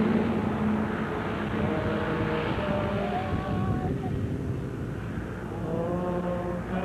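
Strong wind buffeting the microphone, a steady rough rumble, with faint pitched sounds in the background.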